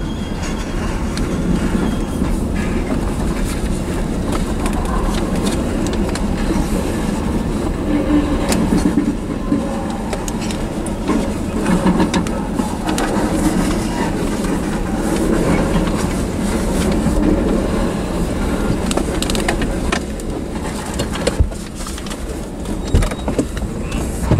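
Freight cars, covered hoppers and tank cars, rolling past close by: a steady rumble of steel wheels on the rails with scattered clicks and knocks.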